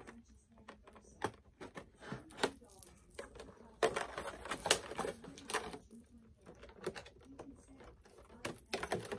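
Cardboard doll box with a clear plastic window being handled and turned over: scattered crinkles, taps and clicks of plastic and cardboard, busiest around the middle.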